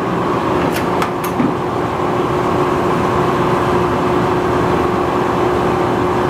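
Electro Freeze batch freezer running with a steady hum as it discharges cherry water ice from its spout. Two short clicks about a second in.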